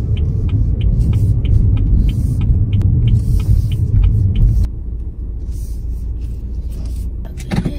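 Car's road rumble heard from inside the cabin, with the turn signal ticking about four times a second. The ticking stops and the rumble drops off sharply a little over halfway through, as the car slows into the parking garage.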